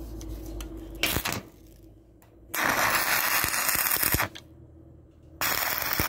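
Electric arc welding on a steel door: three bursts of crackling arc, a short one about a second in, a longer one of under two seconds, and another starting near the end, laid as tack welds fixing a three-piece hinge in place. A faint steady hum lies beneath.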